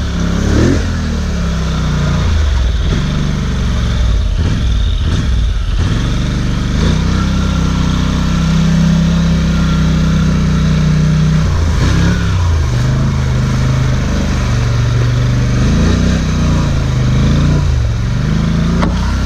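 ATV engine running steadily under load, its pitch dipping and rising several times as the throttle is eased and opened again.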